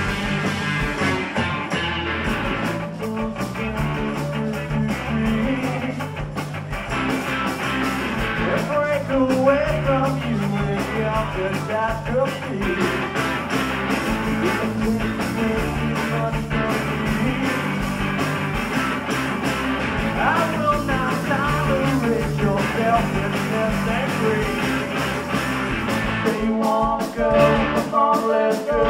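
A rock band playing live through a club PA: electric guitars, bass and a drum kit, the music running continuously.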